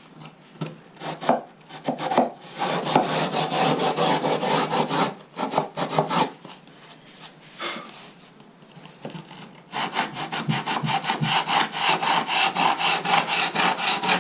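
A hand tool rubbed back and forth over the edge of a Kevlar-carbon composite skin, in rough rasping strokes. It comes in short spells at first, stops for a couple of seconds, then settles into a quick steady rhythm of about four to five strokes a second.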